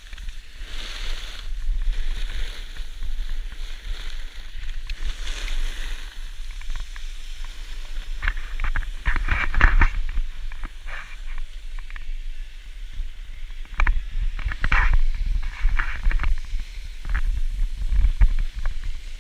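Snowboard sliding and scraping over packed snow, with wind rumbling on the camera microphone. Harder edge scrapes come in clusters about halfway through and again later on.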